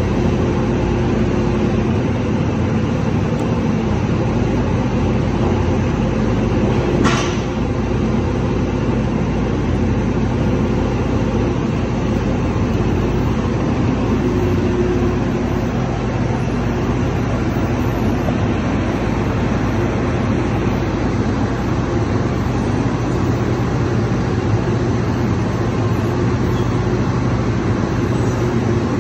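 Wirtgen W 120 XFi cold milling machine running steadily, its diesel engine and hydraulics giving a constant hum while a leg is driven in. A single sharp click sounds about seven seconds in.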